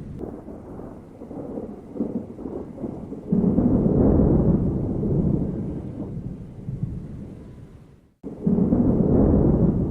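Thunderstorm sound effect played through the ride's speakers: rolling thunder over rain. A loud peal swells about three seconds in and fades slowly, the sound cuts out briefly near eight seconds, and a second loud peal follows.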